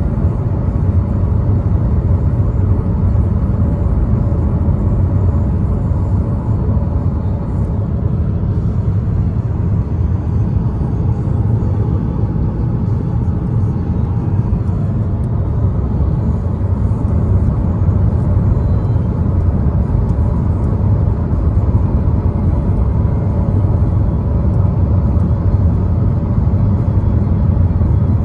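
2015 Chevrolet Cruze driving along, heard from inside the cabin: steady engine and road noise with a constant low rumble.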